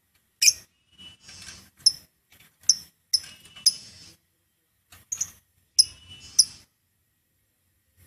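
Caged lovebird giving shrill, squeaky chattering chirps in short bursts of a fraction of a second to about a second each, falling silent for the last second or so.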